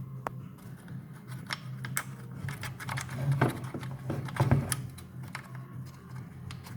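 Scattered light clicks and knocks of hands handling an Audi 2.0 TFSI intake manifold and its broken plastic flap retainer, which is loose and falls out.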